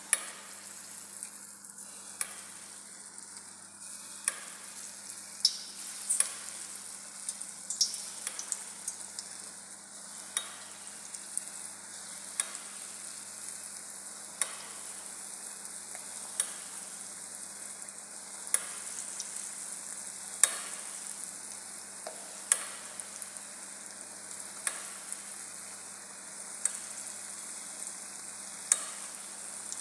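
Geimat dough balls deep-frying in hot oil: a steady sizzle with sharp pops every second or two.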